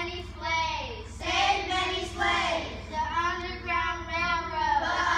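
A group of children singing together, with long held notes that glide between pitches.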